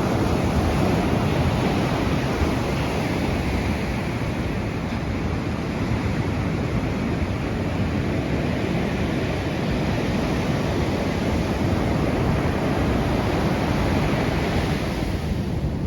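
Pacific Ocean surf breaking and washing up the beach as a steady rush, swelling a little near the end, with wind buffeting the microphone.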